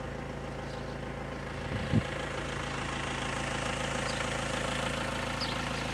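Vehicle engine idling steadily, an even low hum. There is one short falling sound about two seconds in.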